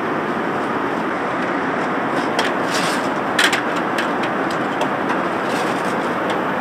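Steady rushing cabin noise of an Airbus A380 in flight, with a few light clicks and knocks on top, the loudest about three and a half seconds in.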